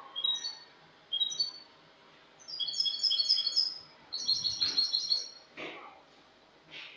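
A European goldfinch (jilguero) singing: quick runs of high, downward-slurred notes in several bursts with short pauses, the longest run in the middle. Two short, softer rustles come near the end.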